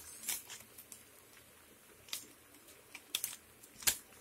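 A few quiet, sharp clicks and light rustles at irregular intervals, from kitchen utensils and packaging handled over a pan of macaroni, with faint room noise between them.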